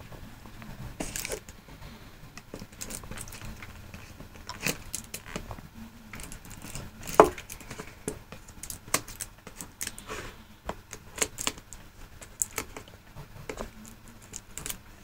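Hands working at a sealed smartwatch box to open its packaging: scattered small clicks, taps and rustles, with one sharper click about seven seconds in.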